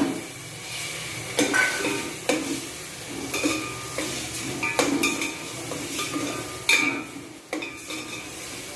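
Raw chicken pieces sizzling in hot oil and masala in a stainless steel pot while a spatula stirs them, scraping and knocking against the pot about once a second.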